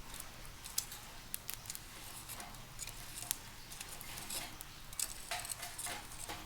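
Crackling and popping on a small charcoal fire-stand grill: irregular sharp pops with light metallic clicks.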